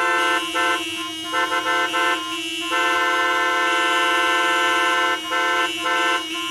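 Car horns honking in gridlocked traffic: long held blasts broken by a run of short honks about half a second in and again near the end.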